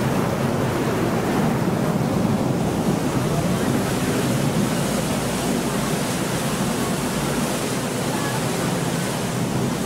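Steady rushing wind and water noise aboard a moving canal tour boat.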